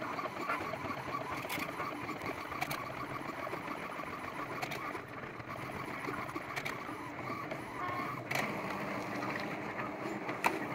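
Epson EcoTank ET-7700 inkjet printer printing a sticker sheet: the print-head carriage running steadily back and forth as the paper feeds out, with a short click every couple of seconds.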